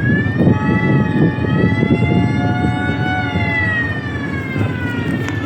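A long siren-like tone, several pitches together, slowly rising and falling, over a steady low engine rumble; the tone fades toward the end.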